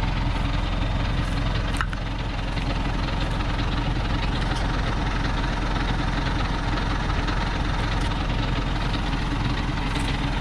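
Thaco Forland truck's diesel engine idling steadily, a continuous low hum.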